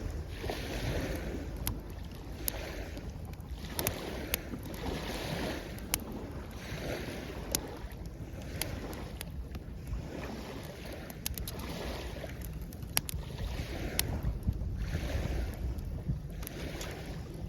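Small waves washing in on the shore every couple of seconds, with sharp scattered pops and crackles from a wood campfire and a low wind rumble on the microphone.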